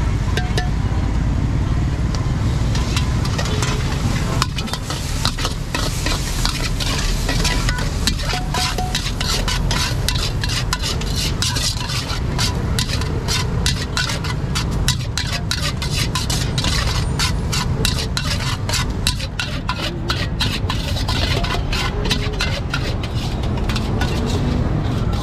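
Metal ladles and spatulas clinking and scraping rapidly against steel woks as fried rice is stir-fried, with food sizzling in the hot pans over a steady low rumble.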